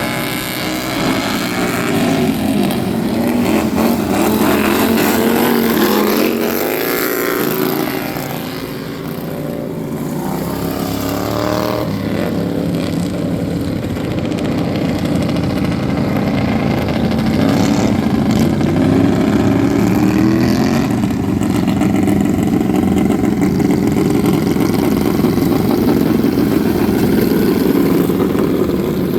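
Racing lawn mower engines running hard, their pitch rising and falling as they rev up and ease off, with a brief lull about eight seconds in.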